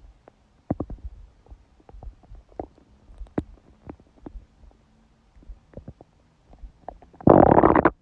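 Human stomach gurgling during menstruation: a scattered run of short gurgles and pops, then a loud, longer growl near the end.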